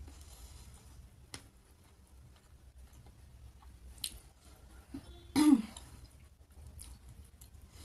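Quiet eating by hand, with a few faint mouth clicks and chewing, then one short, loud throat-clearing a little past five seconds in.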